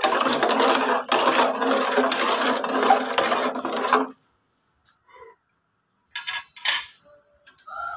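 Metal ladle stirring soup in a large aluminium pot, scraping and clinking against the pot. The stirring stops suddenly about four seconds in, leaving only a few faint clicks.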